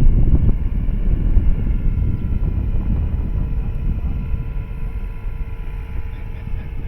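Large electric RC scale helicopter (Eurocopter BK117 model) in flight, its motor and rotors giving a steady whine. Heavy wind rumble on the microphone covers most of it.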